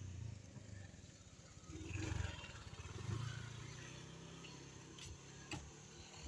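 Low rumble of a vehicle engine running, swelling about two seconds in, with two sharp knocks near the end.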